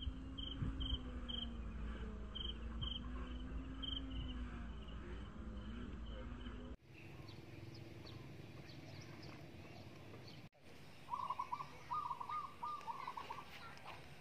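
Outdoor bird and insect sounds, cut suddenly twice: short repeated high chirps over a steady low hum in the first half, then a quieter stretch, then a bird calling in quick trilled bursts from about eleven seconds in.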